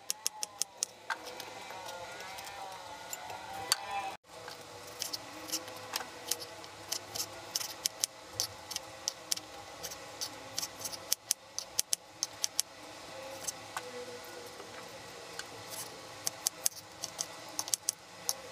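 Kitchen knife striking a bamboo cutting board: quick, even taps while slicing a cucumber at the start. After a brief break about four seconds in come irregular knife strikes while cutting tomatoes into chunks.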